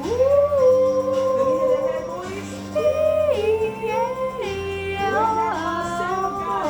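Singing over a backing track: a high voice holds long notes and slides between pitches, over steady low sustained chords.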